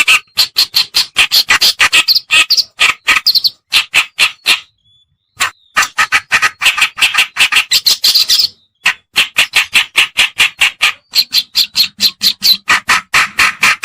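Lure-call recording of a kerakbasi (reed warbler) singing: a rapid, harsh chattering of short notes, several a second. The chattering pauses briefly twice, about four and a half and eight and a half seconds in.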